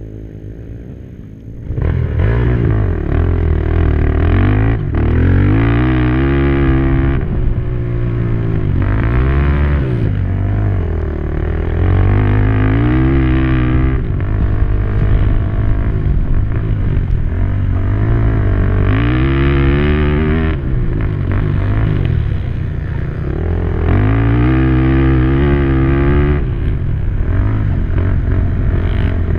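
Racing quad's engine heard from onboard, quiet for the first second or so, then revving hard: its pitch climbs and drops over and over as the rider accelerates, shifts and backs off for turns on a dirt track.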